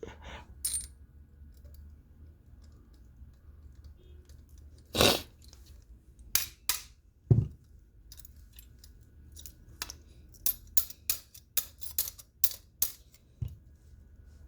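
Sharp metallic clicks and taps from a folding multitool's steel parts being handled and fitted during reassembly. A few loud clicks come scattered near the middle, then a quick run of about three clicks a second near the end.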